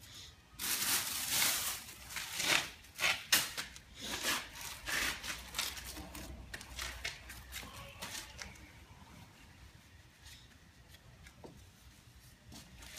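Plastic bag rustling and crinkling as a hand rummages in it: dense for about three seconds, then in scattered bursts that die away about eight seconds in.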